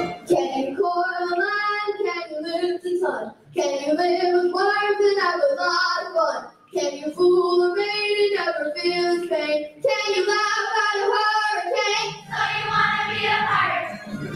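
A large children's choir singing in sung phrases, with short breaks about three and a half and nearly seven seconds in. A low accompaniment joins near the end.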